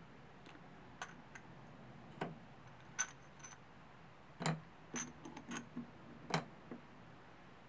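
Irregular sharp metallic clicks and light knocks as steel bolts are worked out of an aluminium intake manifold and set down on a wooden bench, with the manifold handled in between; about half a dozen, the loudest near the middle and shortly before the end.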